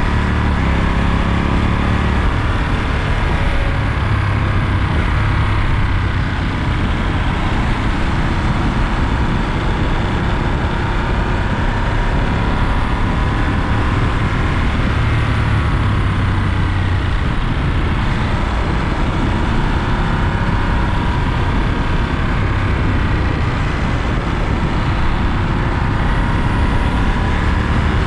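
Ducati Monster 937's 937 cc Testastretta V-twin running under way, its pitch rising and falling gently with the throttle, mixed with wind and road noise.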